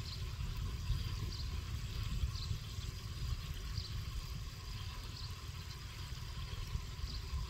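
Wind buffeting the microphone, a steady low rumble, with faint short high chirps recurring about once a second.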